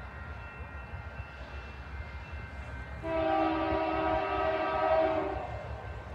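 Approaching train's locomotive horn sounding one long chord blast of about two and a half seconds, starting about halfway through, over a low steady rumble.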